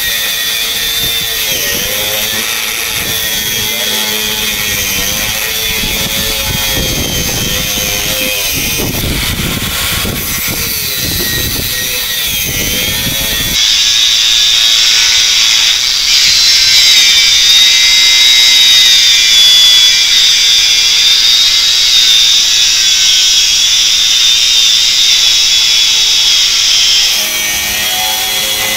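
HL Premier DG 850 4-inch angle grinder with a cut-off disc cutting through a 25 mm solid steel bar: a steady high whine over a harsh grinding noise, the pitch wavering as the disc loads in the cut. About halfway in the sound jumps louder and brighter, then drops back near the end.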